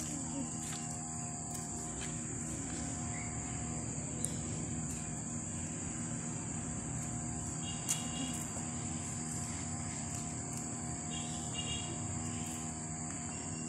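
Steady, high-pitched chorus of crickets or similar insects, broken by a few faint clicks.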